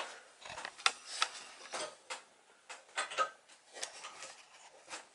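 Irregular light knocks, clicks and scrapes of a softwood board being handled and shifted on a workbench.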